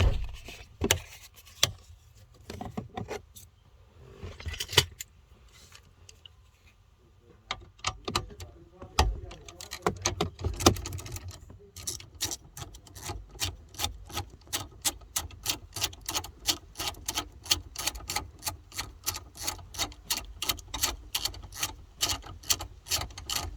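Ratchet wrench clicking steadily, about three to four clicks a second, as a 10 mm bolt holding the car radio assembly is backed out. Scattered taps and clicks of the tool being fitted come before the steady clicking.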